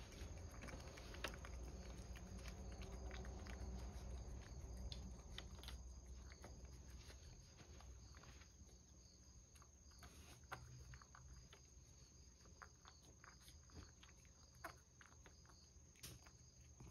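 Cat licking and lapping Churu, a lickable paste treat, from a bowl: faint, scattered small wet clicks of tongue and mouth, over a low hum.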